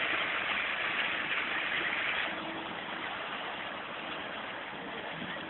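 An engine running under a steady rushing noise; the noise drops in level about two seconds in, and a faint steady hum shows after that.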